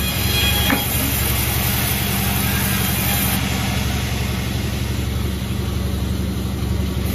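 An engine running steadily at idle, with a brief rising squeal under a second in.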